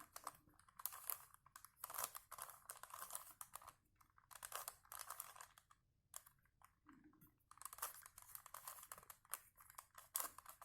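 Rubik's Cube faces being twisted by hand through a move sequence: quick bursts of plastic clicking and rattling, with short pauses between turns.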